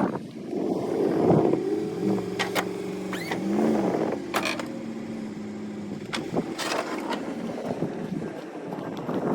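Engine of a snow-plowing vehicle running while it back-drags snow off a driveway. The engine note rises and falls about three to four seconds in, and several sharp knocks cut through it.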